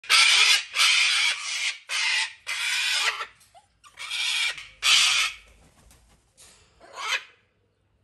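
Large parrots screeching: about eight loud, harsh squawks in quick succession, each under a second long.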